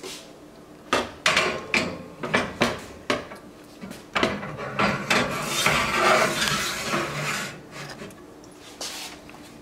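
Metal baking pans knocking and clattering in a kitchen: a run of sharp knocks, then a longer stretch of scraping and rattling in the middle, and a few more knocks near the end.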